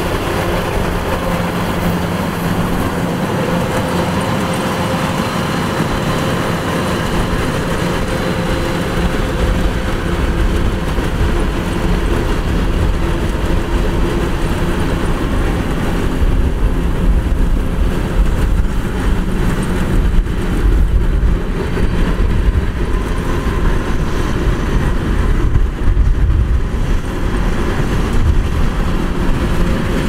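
Kubota DC-105X rice combine harvester's diesel engine and machinery running steadily at work. The sound grows louder and deeper from about halfway through.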